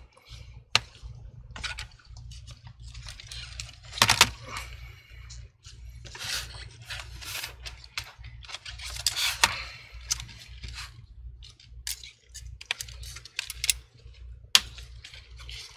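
Scattered clicks, knocks and short scrapes of a laptop's metal hinges and plastic chassis being handled as the hinges are pushed back, with a louder knock about four seconds in and another near the end, over a steady low hum.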